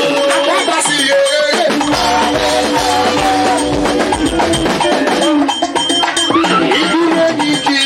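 Live praise-band music: long held pitched notes over steady hand percussion such as shakers and bell or wood-block hits.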